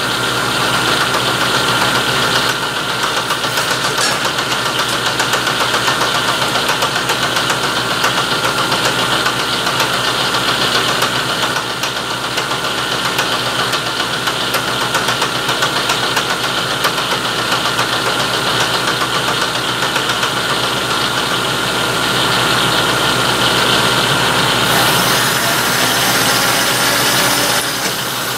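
Milling machine spindle running while its cutter takes a trial cut along the edge of a quarter-inch steel plate: a steady machine hum with a fine rapid chatter of the cutter in the steel. The sound lightens near the end as the cut runs out.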